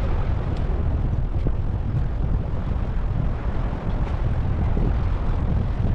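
Wind buffeting the microphone: a steady low rumble, with a few faint small ticks.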